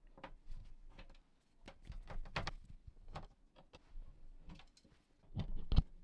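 Screwdriver working the screws out of a cassette mechanism's metal mounting plate: a scattered run of small clicks and ticks, with a louder cluster of knocks near the end.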